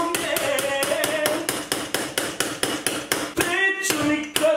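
A mallet striking Plazma biscuits wrapped in a kitchen towel on a countertop, a rapid run of about six knocks a second, crushing the biscuits into crumbs. The knocking breaks off briefly a little past three seconds in, then resumes.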